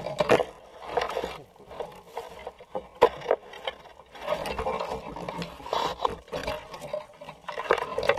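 Brush and branches rustling and scraping, with irregular knocks, as a downed bull moose's head and antlers are pulled and twisted free of the ground.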